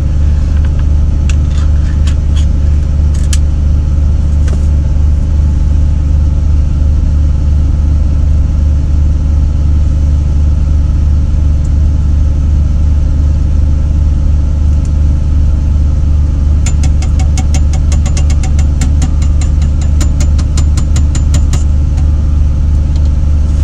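A diesel engine idles steadily with a loud, constant low hum, heard inside a semi-truck cab. Over it come a few metallic clicks in the first few seconds and a quick run of metallic clicks about two-thirds of the way in, as soup cans are opened and emptied.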